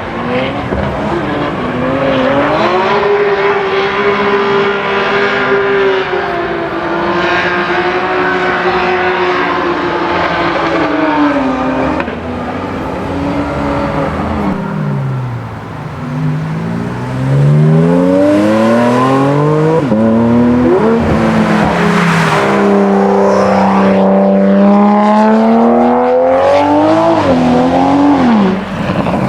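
Toyota GR Supra's B58 straight-six engine revving hard, its pitch swinging up and down as the car is driven. About halfway through it gets louder, with a run of quick rising revs.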